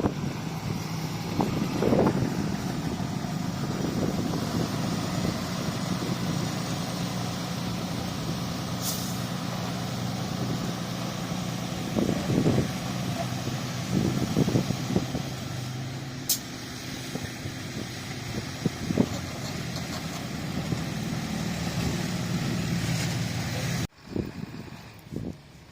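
Bulldozer's heavy diesel engine running steadily under load, with several clanks and knocks from the machine working. The sound drops off abruptly near the end.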